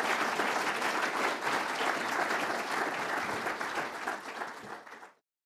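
Audience applauding, a dense patter of many hands clapping that thins out and then cuts off abruptly near the end.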